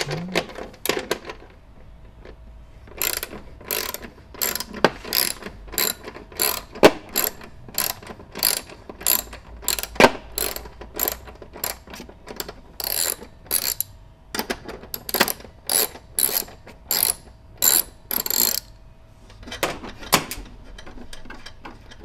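13 mm socket ratchet wrench clicking as it loosens a nut: a long run of sharp ratchet clicks in back-and-forth strokes, with a short pause near the end.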